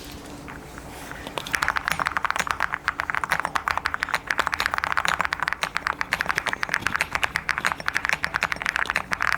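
Fast, continuous typing on a mechanical keyboard fitted with full metal keycaps: a dense run of key clacks that starts about a second and a half in.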